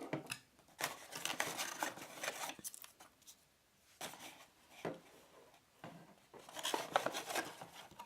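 Box packaging being handled as the doorbell and its parts are lifted out: irregular bursts of rustling and scraping, with one sharp click just before five seconds in.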